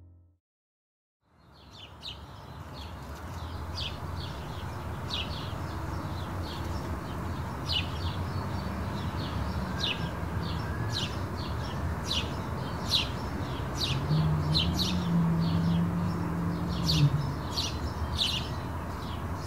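Silence for about a second, then outdoor ambience fades in: small birds chirping with many short, high chirps over a steady low rumble. A low hum sounds for a few seconds near the end.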